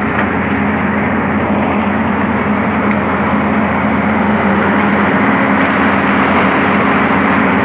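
Tata Hitachi excavator's diesel engine running steadily under load, over a continuous rush of crushed stone sliding and pouring off the side of an open railway wagon as the bucket pushes it out.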